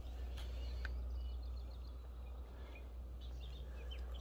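Outdoor riverside ambience: small birds chirping in short calls in the second half, over a steady low rumble.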